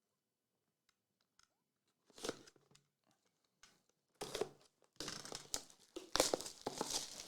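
Plastic wrapping on a sealed trading-card box being torn open and crinkled by hand. It comes in short bursts of crackling, sparse at first and then almost continuous over the last couple of seconds.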